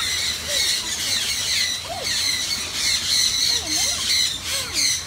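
Many birds calling at once in a dense, continuous chorus of high squawks and chirps.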